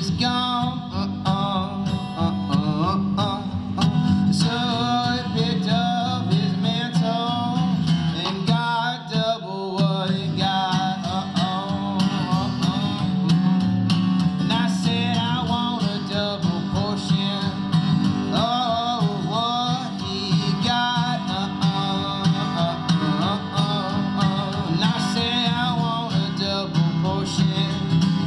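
Country-style song with acoustic guitar and a singing voice.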